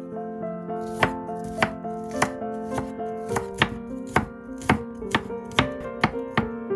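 Chef's knife chopping garlic cloves on a wooden cutting board: a run of sharp knocks, a little under two a second, with soft piano-like background music underneath.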